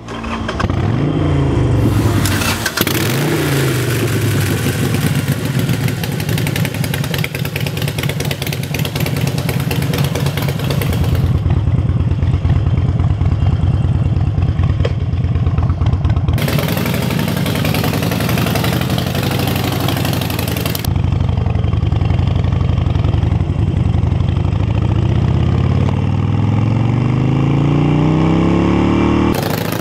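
Harley-Davidson Forty Eight's air-cooled 1200 cc V-twin running through Vance & Hines Shortshots exhaust pipes. It is revved twice near the start, rising and falling in pitch, then runs on fairly steadily. Over the last few seconds the pitch climbs steadily as the bike accelerates.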